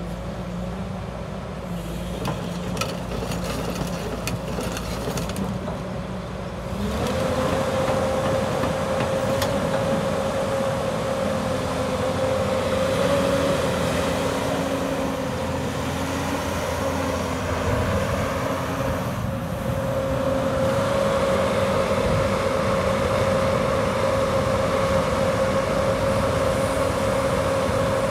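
Doosan DX300LCA hydraulic excavator's diesel engine running, lower at first, then stepping up in speed and loudness about seven seconds in and holding with a steady hum while the boom, arm and bucket are worked.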